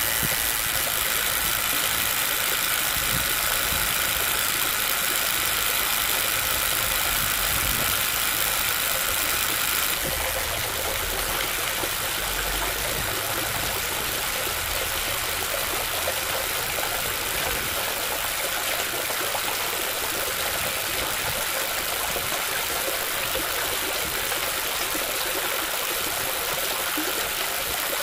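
Small DC motor running steadily as it cranks a miniature hand pump up and down, a continuous whir that eases slightly about ten seconds in.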